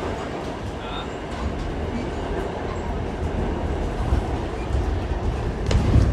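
R46 subway train running on the track with a steady rumble and wheel clatter, and one sharp clank near the end.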